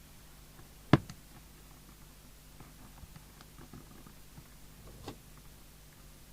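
Handling sounds on a workbench during radio repair: one sharp knock about a second in, a softer one near the end, and faint scattered clicks over a low steady hum.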